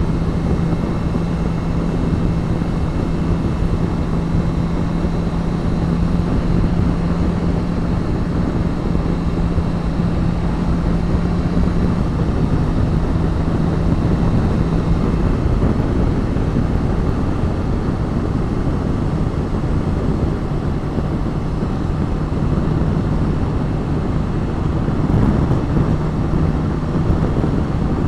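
Motorcycle on the move, heard from the rider: a steady rush of wind and road noise with the engine's steady hum, which fades out about halfway through and comes back near the end.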